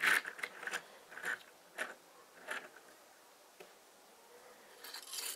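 Plastic building-brick toy truck being handled and moved on a wooden tabletop: a string of short clicks and scrapes, then a longer, louder scrape near the end.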